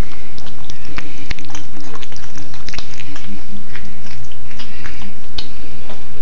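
Six-week-old serval kittens eating chopped chicken from a plate: wet chewing and smacking clicks, irregular, several a second.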